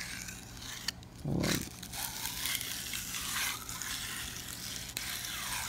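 Faint handling noise and light metal scraping as an adjustable wrench is fitted onto the anvil of a cut-open air impact wrench and turned, over a steady low hum.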